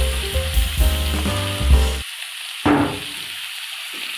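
Sliced carrots and chayote sizzling in hot oil in a pan. Background music plays over the first half and stops about two seconds in, and a short, sharp sound breaks in at about two and a half seconds.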